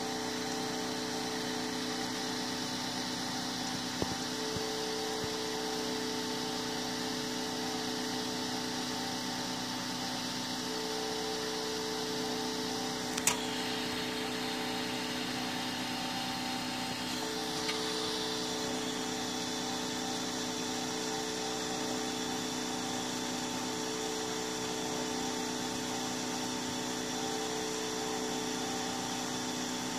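3D printer extruding filament from its hot end: a steady machine hum with a mid-pitched tone that switches on and off every few seconds. A single sharp click about thirteen seconds in.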